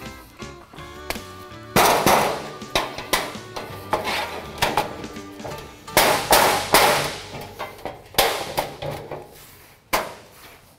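Background music, then from about two seconds in a string of loud, irregular metallic clanks and knocks, each ringing briefly: a steel siding panel being handled while seal trim is fitted onto its cut end.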